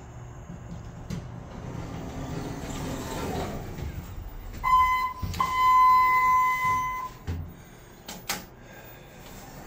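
Elevator's electronic beep: a short steady tone, a brief break, then the same tone held for about a second and a half. Two sharp clicks follow near the end.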